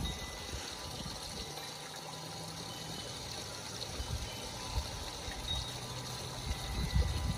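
Backyard pond's fountain trickling and splashing steadily, with a few low rumbles near the end.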